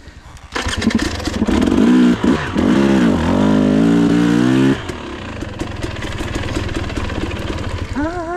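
Enduro dirt bike engine revving hard for about four seconds, its pitch dipping and climbing again, then dropping back to a lower, steadier run.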